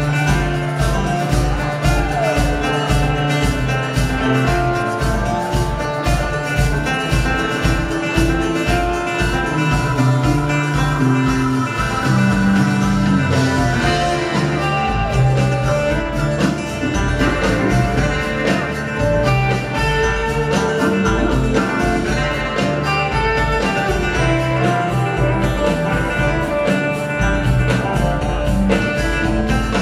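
Live band playing an instrumental passage: acoustic and electric guitars over drums and upright bass. A steady low beat runs through the first twelve seconds or so, then the bass pattern changes.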